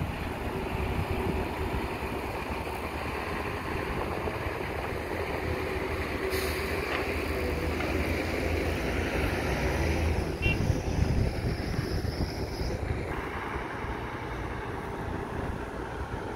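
Diesel engines of a Caterpillar hydraulic excavator and a dump truck running steadily as soil is loaded into the truck bed, a low rumble.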